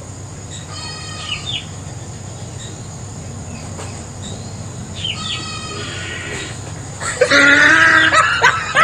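Birds calling in short groups of chirps, twice, over a steady low hum. Near the end a much louder pitched call or voice begins, bending up and down.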